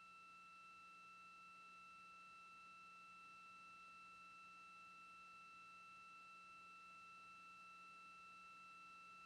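Near silence with a faint, steady high-pitched electronic tone, accompanied by fainter steady overtones, unchanging throughout.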